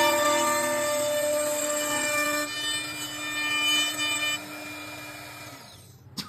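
CNC wood-turning lathe running, a steady high whine of several tones from the spindle and cutter, shifting a few times. Near the end it winds down and falls quiet, then a sharp click.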